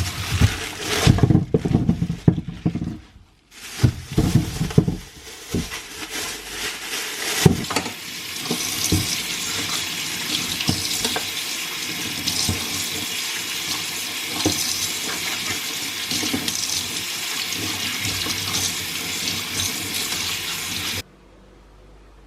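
Water running from a tap into a kitchen sink, with items knocking and clattering in the sink at first. The flow then runs steadily and cuts off suddenly near the end.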